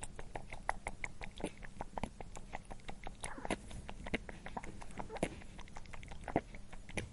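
Pet rabbit chewing food, a rapid run of irregular small crunches and clicks.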